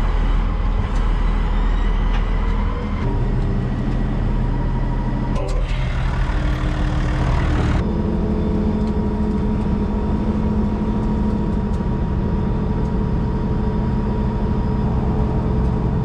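Farm tractor engine running steadily, its note shifting twice, with a hiss lasting about two seconds near the middle.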